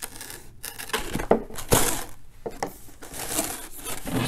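A cardboard box being handled and turned over on a table: rustling and scraping with a few sharp knocks.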